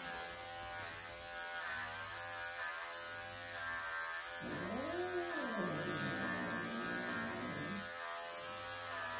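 Cordless Wahl pet clippers buzzing steadily through a Siberian forest cat's matted coat, while the cat growls in anger at being clipped. About halfway through the growl swells into one long call that rises and falls in pitch.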